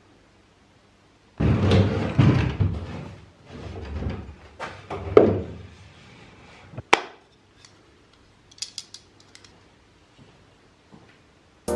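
Wooden scraping and rattling as a homemade lift-up, slide-in cabinet door is worked open and shut, with a sharp knock about seven seconds in and a few light ticks after it. The door does not run well.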